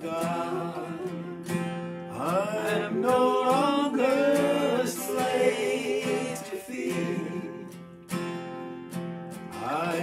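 Acoustic guitar strummed while men's voices sing a slow worship song; the sung notes swell about two seconds in, ease off around eight seconds and return near the end.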